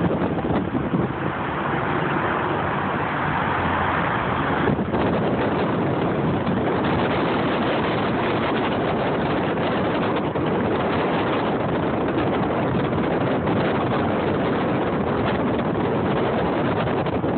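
Steady road and wind noise of a car driving on a freeway, heard from inside the car.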